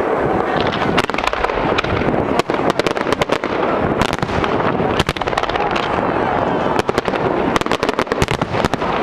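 Aerial fireworks display: shells bursting in quick succession, a dense barrage of sharp bangs, several a second, over a steady background of rumble.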